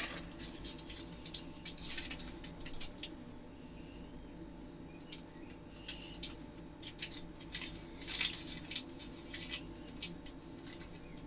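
Scattered soft clicks, taps and scrapes of a spoon spreading tomato sauce over rolled pizza dough, in two clusters near the start and in the second half, over a faint steady hum.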